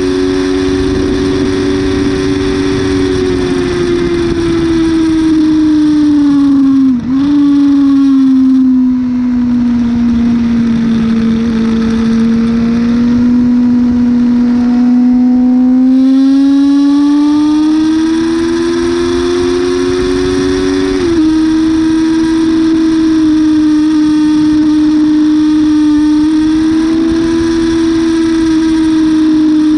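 Yamaha R6 inline-four sportbike engine heard onboard, over wind noise. The revs fall as the rider slows into a corner, with a quick blip about seven seconds in on the downshift from third to second. The engine then pulls back up in second and drops in pitch on the upshift to third about 21 seconds in, holding a steady note after that.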